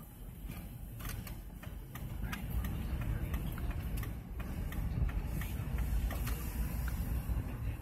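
Low rumble of a car driving, heard from inside the cabin: engine and road noise, with scattered small clicks and ticks.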